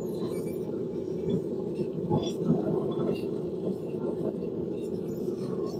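Blacksmith's forge running with a steady rushing noise, with a few faint clicks on top.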